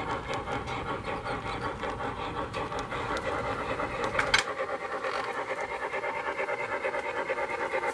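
Model train running: the MTH 2-8-2 steam locomotive's sound system chuffing in a steady rhythm, over the rumble of the passenger cars rolling on the track. A little past halfway there is a sharp click and the low rumble cuts off, leaving the chuffing.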